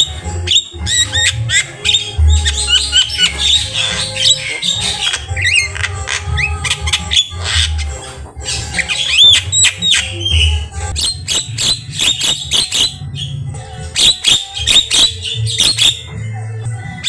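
Javan myna (jalak kebo) singing a loud, fast, varied song: rapid clicks and harsh squawks mixed with whistled rising and falling phrases, including mimicked calls of other birds.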